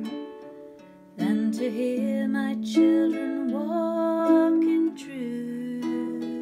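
A woman singing with her own accompaniment on a small lap harp. Plucked harp notes ring and fade for the first second, she sings a phrase from just over a second in to about five seconds, then the harp notes carry on alone.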